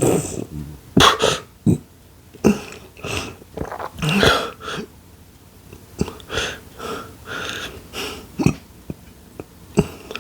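A person hiccupping, with sharp hiccups every second or two, between gasping, wheezing breaths and throat noises. These are the hiccups and nausea brought on by eating extremely spicy instant noodles.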